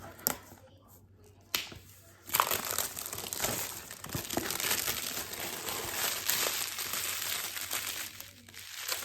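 A couple of short sharp crackles, then from about two seconds in a continuous crinkling and crumpling as the tight wrapping is torn and pulled off a small product box by hand.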